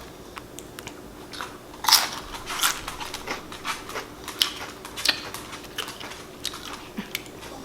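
Close-up crunching and chewing of Lay's potato chips, a run of irregular crisp crunches, the loudest about two seconds in.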